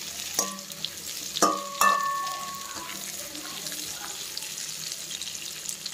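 Sliced onions and dried red chillies sizzling in oil in a metal kadai while a perforated steel ladle stirs them, scraping and clinking against the pan. A few ringing clinks of the ladle on the pan come in the first two seconds, then steady sizzling.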